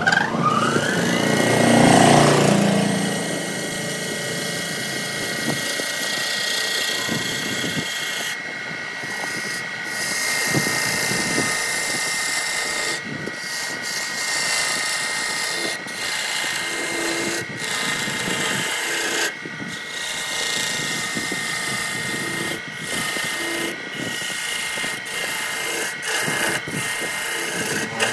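Wood lathe starting up: its motor whine rises in pitch over the first second or so and then holds steady. A hand-held turning tool cuts into the spinning wooden dish with a rough scraping hiss that breaks off briefly every few seconds as the tool is lifted.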